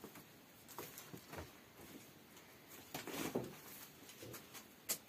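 Faint scattered clicks and knocks with light rustling: a handful of short sharp sounds, with a small cluster of them about three seconds in.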